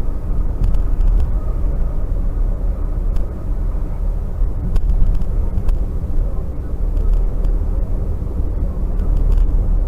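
Steady low rumble of a moving vehicle's engine and road noise, with a few faint clicks.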